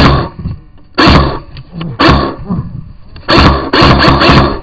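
Airsoft gun firing in four loud bursts about a second apart, the last one longer.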